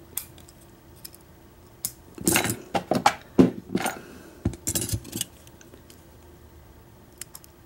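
Small metallic clicks and clinks from steel tweezers prying the wafers and springs out of a scooter ignition's wafer-lock plug. The clicks come in a quick cluster from about two to five seconds in, with only a few faint ticks after that.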